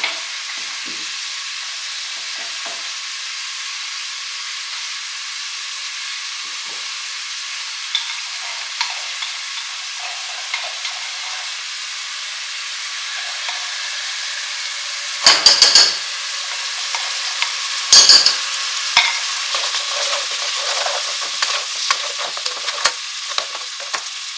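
Onions frying in cooking oil in a pan, a steady sizzle with a utensil stirring and scraping. About two-thirds of the way through come two short, loud clattering bursts a few seconds apart.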